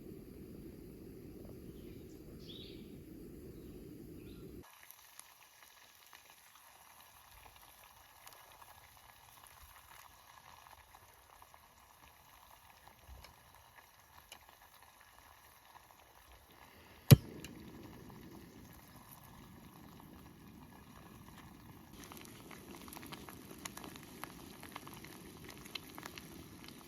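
Food cooking over a camp stove: a pot bubbling and sizzling, heard in several short cuts, with one sharp click about two-thirds of the way through.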